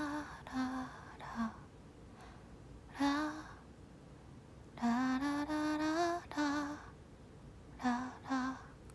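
A young woman singing unaccompanied in short phrases of a few held notes each, with pauses in between.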